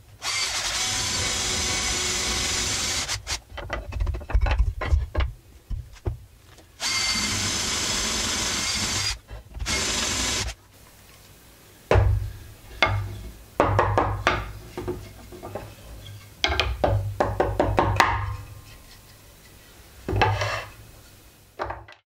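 Cordless drill boring holes through pine-like wooden strips: the motor runs steadily for about three seconds, labours unevenly as the bit cuts, then runs steadily again for a few seconds. In the second half, a string of short knocks and scrapes of wood and tools being handled on a wooden table.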